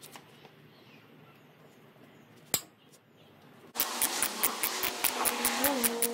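Hand-tool work on the engine: a single sharp click, then, from about four seconds in, a quick even run of clicks, about five a second, over a low steady hum.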